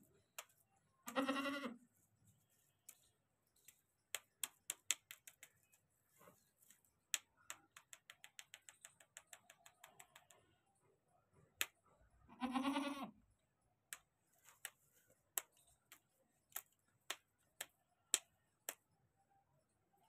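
A goat bleats twice, each bleat a single call under a second long, about eleven seconds apart. Sharp clicks come in between, some in quick runs.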